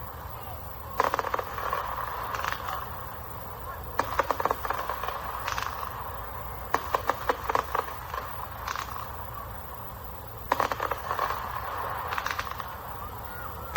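A 600-shot firework cake firing: clusters of rapid sharp pops and crackles every second or two, over a steady background noise.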